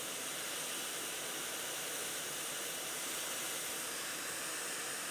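ATTEN ST-862D hot air rework station blowing air from its handpiece nozzle: a steady, even hiss.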